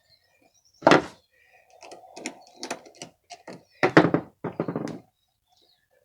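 Knocks, clunks and small clicks and rattles of hands and tools working on an ATV's choke button while fitting hose and hose clamps, with a loud knock about a second in and another burst of knocks around four seconds in.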